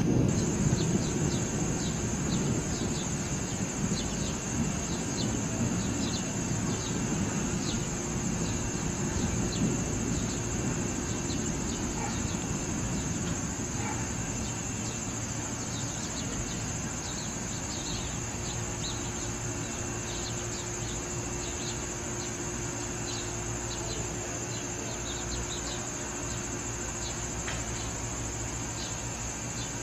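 Crickets trilling in a steady, high-pitched chorus, with scattered short chirps over it. A low rumble is loudest at the start and fades away over the first ten seconds or so.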